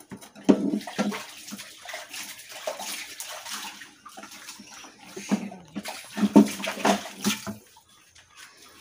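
Water pouring and splashing as cooking pots are handled, broken by a few sharp knocks. It is loudest about half a second in and again about six to seven seconds in.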